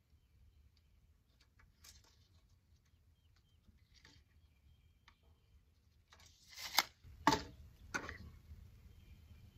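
Handling of a tape measure and pencil on a 2x4 board: faint clicks and taps, then about six seconds in a short scraping rush followed by three sharp knocks.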